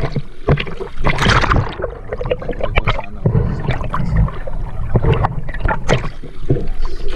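Sea water sloshing and splashing against a camera that dips in and out of the waves, heard as irregular splashes over a low rumble.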